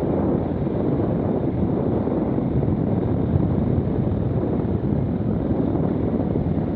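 KTM 690 Enduro R's single-cylinder engine running steadily as the bike rides a dirt forest trail, mixed with wind buffeting the microphone.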